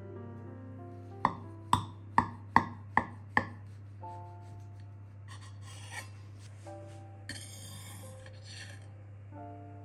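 Six sharp kitchen knocks about two a second, like a knife chopping on a board, then two short spells of scraping, over soft background music with held notes.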